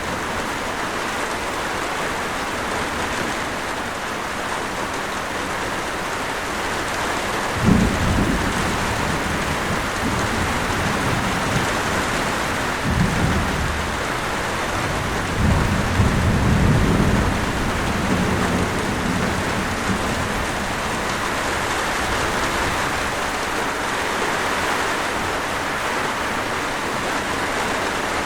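Steady heavy rain, with deep rolling rumbles of thunder: one sets in suddenly about eight seconds in, then more come around the middle.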